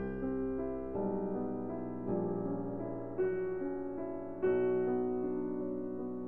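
Background piano music: slow, gentle chords struck about once a second, each fading before the next.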